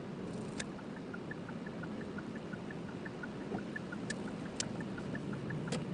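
Car driving, heard from inside: a steady rumble of road and tyre noise with a low hum, and a few sharp knocks, loudest about four and a half seconds in. A faint, quick, regular high chirping, about five or six a second, runs under it.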